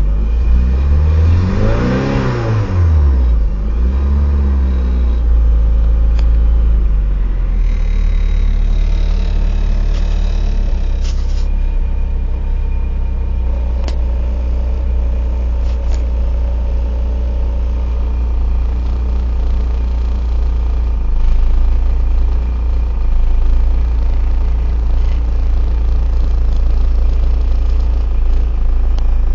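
1995 Eclipse GST's turbocharged 2.0-litre four-cylinder engine revved briefly near the start, then idling, an idle that the owner calls rough.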